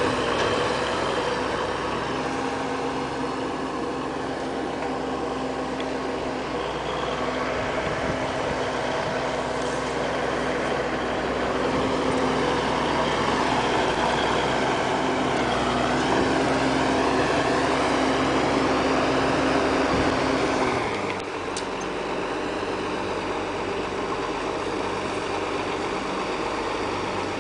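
Heavy diesel engines running steadily, from a Versatile 875 four-wheel-drive tractor and a semi truck beside it. About 21 seconds in, one engine drops back and the sound gets a little quieter.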